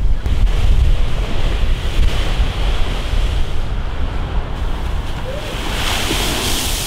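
Storm surf churning and breaking against a concrete sea wall, with heavy wind buffeting the microphone; the swell is driven by a hurricane offshore. Near the end a wave strikes the wall and sends up spray with a louder, hissing splash.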